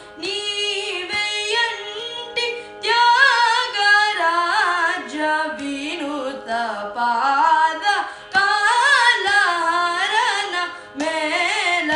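A boy singing Carnatic classical music, phrases in raga Suddha Saveri full of sliding, ornamented notes, with short breaks between phrases. A steady drone holds underneath.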